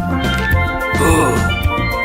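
Cartoon soundtrack music: bright pitched melody over a steady bass beat with percussion, and a wavering warbly figure about a second in.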